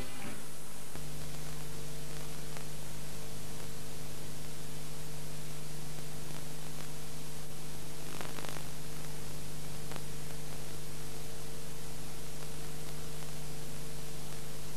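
Steady hiss with a constant low hum: the playback noise of blank videotape. A faint crackle comes about eight seconds in.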